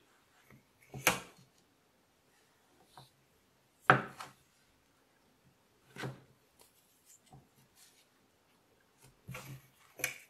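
Rulers being set down against the edge of a clay slab and its frame and pressed and slid along it: a few short knocks and scrapes with quiet between, the loudest about four seconds in and a quick cluster near the end.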